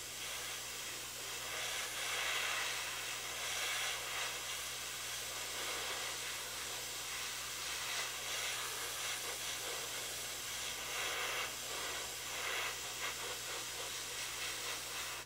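Airbrush hissing steadily as it sprays MRP fine surface primer onto plastic model parts.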